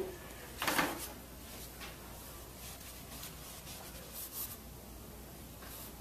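Paintbrush loaded with oil paint stroking across a canvas: a few short brush strokes, the loudest about a second in, over a faint steady low hum.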